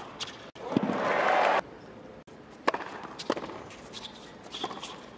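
Tennis match sound: a short burst of crowd cheering and applause about a second in, cut off abruptly, then a few single sharp knocks of a tennis ball.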